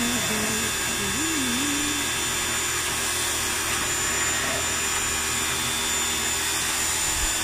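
Portable car pressure washer running steadily, its motor and pump going with the hiss of the water jet spraying into the metal housing and coil of a window-type air conditioner.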